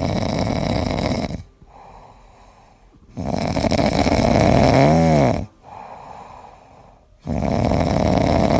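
A sleeping person snoring: three long, loud snores with quieter breathing between them. The second snore ends in a short tone that rises and then falls.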